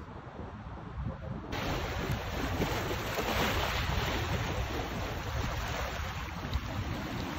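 Wind rumbling on the microphone by the sea, then about a second and a half in it changes abruptly to louder seawater washing over rocks, a steady rushing wash.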